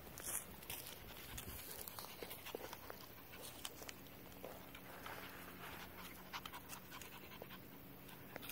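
Pomeranian puppy panting, with scattered small clicks and rustles of movement in the grass.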